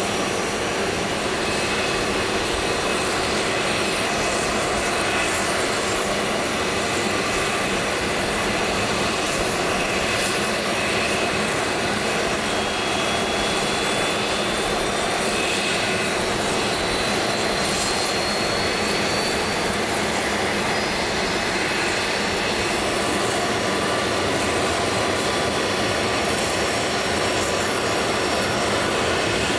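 The turbofan engines of a small twin-engine business jet run at taxi power as a steady jet rush. A faint high whine rises slowly in pitch around the middle.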